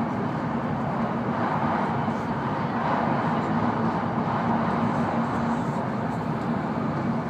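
Running noise of a W7-series Shinkansen heard inside the passenger cabin at speed: a steady rushing noise with a low hum.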